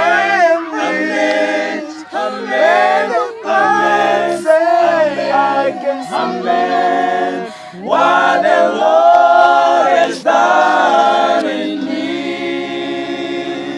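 Gospel choir singing a cappella, several voices in short sung phrases. Near the end the choir settles on a long held chord that slowly fades.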